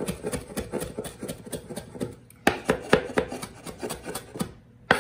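Kitchen knife chopping fresh parsley on a bamboo cutting board: a fast run of blade knocks on the wood, then fewer, louder strikes from about halfway, with a short pause near the end.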